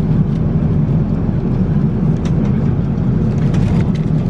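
Steady cabin roar of a Boeing 787-8 airliner in flight, engine and airflow noise heavy in the low range, with a few faint clicks.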